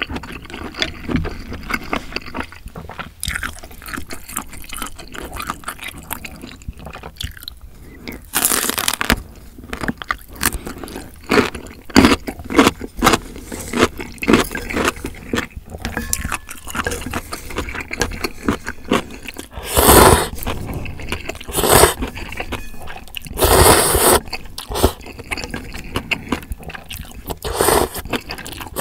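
Close-miked eating of ramyeon noodles and sliced sausage: wet chewing and many small mouth clicks, broken by a few loud slurps of noodles lasting about a second each.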